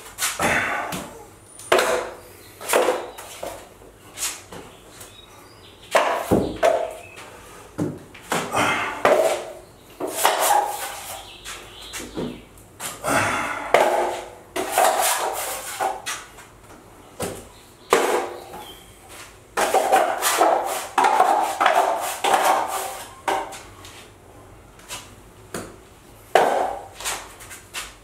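Drywall knife scraping joint compound along the wall and across the edge of a metal mud pan, in repeated strokes with sharp clicks of the blade against the pan.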